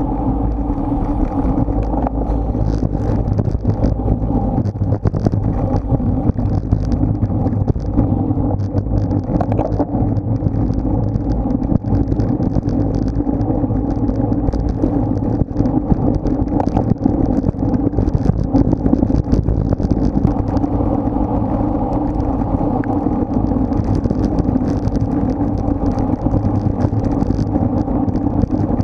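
Steady wind rush and rumble on a bike-mounted action camera's microphone while riding at race speed on a road bike, mixed with road and tyre noise.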